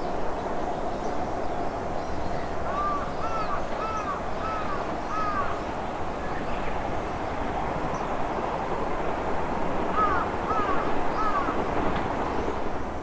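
A distant Odakyu electric train running along the curved track and fading away, under a steady rumble, while a crow caws in two series of about five calls, about three seconds in and again about ten seconds in.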